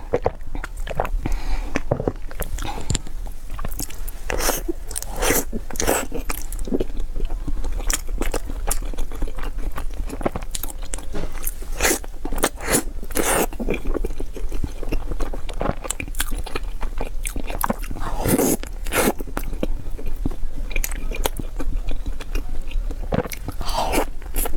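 Close-miked eating: a person biting into and chewing crunchy food, with many short, irregular crunches.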